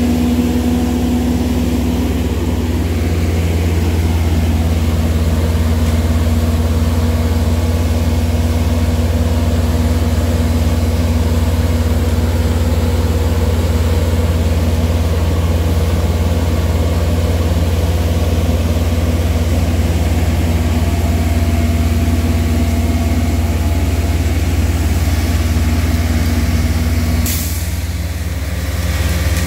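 Western Star vacuum excavation truck running at work, its Weichai diesel engine and vacuum system giving a loud, steady low drone with a constant hum. Near the end a brief sharp hiss cuts in, after which the hum's note drops out and the drone dips for a moment.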